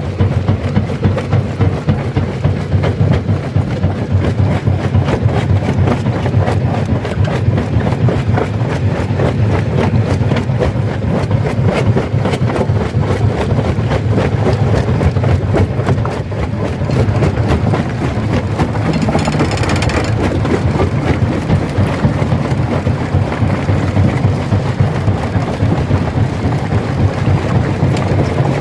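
Stone crusher running under load: a steady, loud machine drone with a dense, continuous clatter of rock being crushed. A brief sharp burst comes about two-thirds of the way in.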